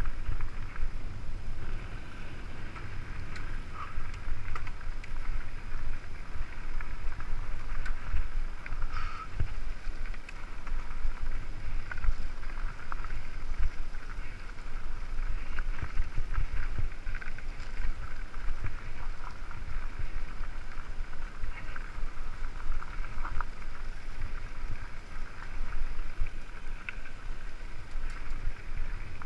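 Mountain bike rolling down a rough dirt singletrack: a steady low rumble with frequent jolts and rattles from the bike, and wind buffeting the microphone.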